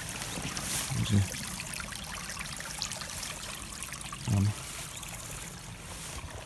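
Small, quiet forest brook trickling and flowing steadily. Two short low sounds stand out above it, about a second in and again past four seconds.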